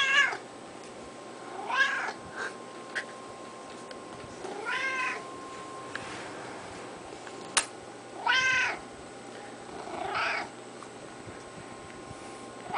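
Orange-and-white tabby cat meowing repeatedly while being petted: about five separate meows, each rising and falling in pitch, a couple of seconds apart. One sharp click a little past the middle.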